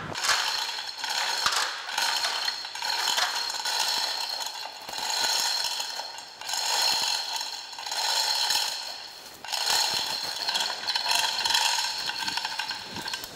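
Hand-chain hoist being worked to let a heavy band saw wheel down, its chain and ratcheting gear clattering steadily. It comes in three long runs, with short pauses about six and nine seconds in.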